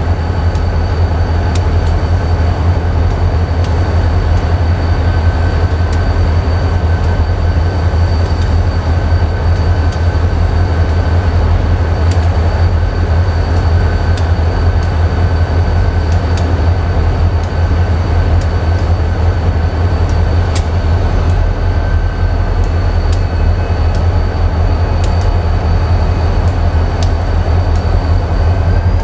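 Freight train rolling past: a steady heavy rumble from the cars, with scattered clicks from wheels over rail joints and a faint, steady high-pitched ring from the wheels.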